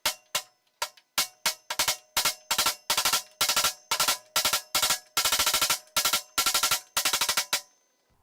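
Rubber hammer striking a lathe tailstock hand wheel again and again to knock it off, each blow ringing with the same metallic tones. The blows start singly, about two a second, then come in quick runs of several strikes, and stop shortly before the end.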